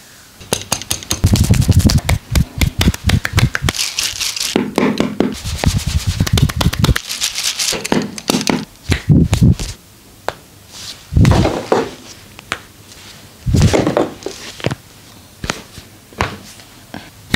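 Fast, loud slapping and tapping of hands on skin during a massage: a long rapid run for the first several seconds, then shorter bursts.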